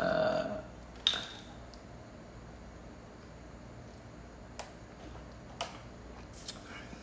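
A short laugh, then a sharp click about a second in and a few faint clicks over quiet room tone.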